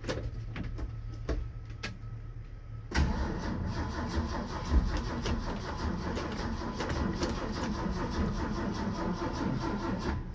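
A 1967 Ford F250's inline-six cranked on the starter for about seven seconds from about three seconds in, with the choke pulled, not yet firing while fuel is drawn through from a temporary tank. Before the cranking there are only a low steady hum and a few clicks.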